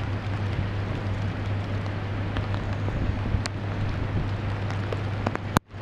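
A steady rush of wind and water over a flooded street, with a constant low hum underneath and a few faint ticks. The sound cuts out abruptly for a moment near the end.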